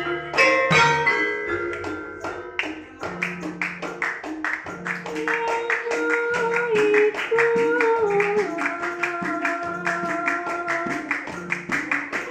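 Javanese gamelan in slendro tuning: metallophone keys struck with ringing notes, then a girl's sustained singing voice over a fast, even rhythm of hand claps and repeated low gong-like notes.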